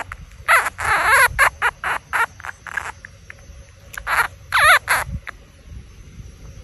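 Baby squirrel crying in a rapid series of short squeaky calls for about three seconds, then a few more about four seconds in, one of them long and wavering in pitch.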